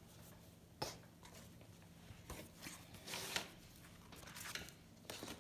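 Faint handling sounds of a cotton flour sack tea towel and a plastic screen-print transfer sheet being moved and positioned on a cutting mat: soft rustles, with a sharp tap about a second in and the loudest rustle about three seconds in.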